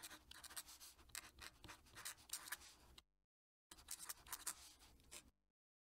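Faint scratching of a fountain pen nib on paper in quick handwriting strokes. It stops about three seconds in, then resumes for about a second and a half.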